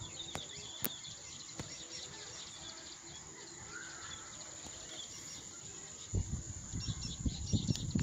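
Outdoor birdsong and insects: a steady high insect drone with short bird chirps over it. A low rumble starts about six seconds in and carries on to the end.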